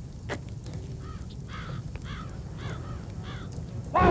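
Crows cawing, about five short caws in a row, over a steady low background rumble. Right at the end a loud rifle volley breaks in.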